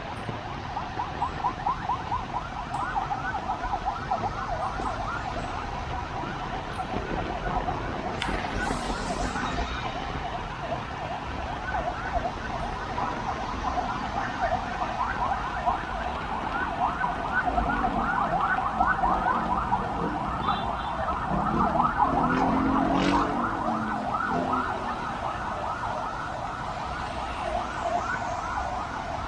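A siren with a fast, continuous warbling tone over city traffic noise.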